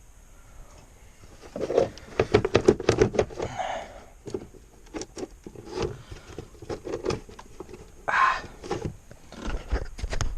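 A run of quick clicks, knocks and rattles from parts being handled, with a short scrape about eight seconds in.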